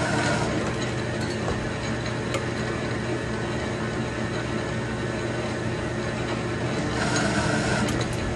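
Metal lathe running steadily while single-point threading a steel part, with a mechanical whir and hum from the machine. A brief higher rasp from the tool cutting comes at the very start and again about seven seconds in, with a few sharp clicks.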